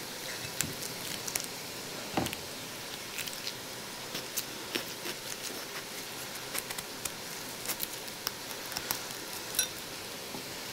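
Knife cutting through eggplants on a wooden cutting board: scattered small clicks and taps, with a thump about two seconds in. Under it, a faint steady sizzle from minced meat and vegetables frying in a pot.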